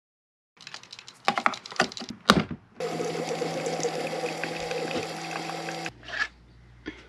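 Clicks and knocks of a single-serve K-Cup coffee maker being loaded and started. Then about three seconds of the brewer pumping coffee into a ceramic mug, a steady hum with a trickle that stops abruptly. A couple of knocks follow as the mug is taken out.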